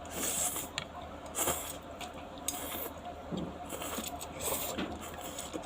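Close-up eating sounds of Korean noodles being slurped and chewed: about four short hissy slurps with a few light clicks in between.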